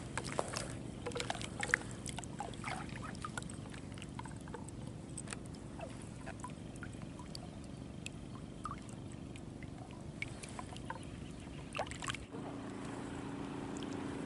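Shallow reservoir water lightly splashing and dripping around a wading angler, with scattered small clicks from handling the rod and tackle, over a steady low hum. Near the end the background changes to a smoother, steadier hum.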